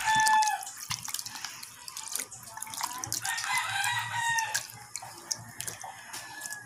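Water sloshing, splashing and dripping as hands knead and wash raw pork mesentery in a plastic basin of water. A rooster crows as it begins and again for about two seconds in the middle.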